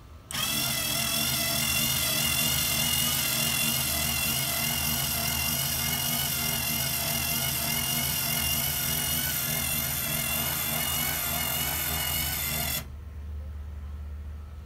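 Black & Decker AS6NG cordless screwdriver, used as the motor of a roller sun shade, starts up and runs with a steady geared whine as it turns the roller and winds the shade up, then stops abruptly near the end.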